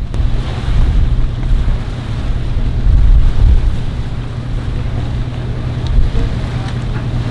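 Wind buffeting the microphone in gusts, with a boat's outboard motor idling steadily underneath as the center-console boat is eased toward its trailer.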